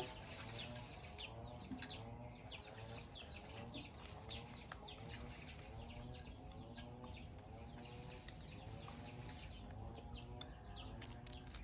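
Chickens clucking softly, with a steady stream of short, high, falling chirps several times a second.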